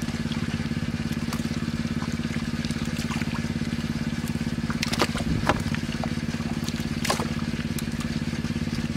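A small engine running steadily at an even, fast-pulsing idle. A few short sharp sounds break through about five seconds in and again about seven seconds in.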